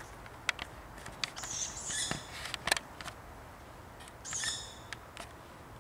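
Young tawny owl giving two high, harsh begging calls: one about a second long, starting about one and a half seconds in, and a shorter one at about four and a half seconds. Several sharp clicks fall around them, the loudest between the two calls.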